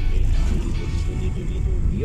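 Music playing over the steady low rumble of a car driving slowly, heard from inside the cabin.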